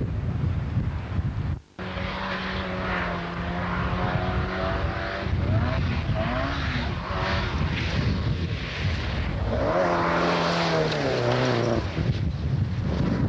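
Rally car engines running hard past a gravel stage, first holding a steady high note, then a second run whose note steps down near the end, over gravel and wind noise. The sound cuts out briefly just under two seconds in.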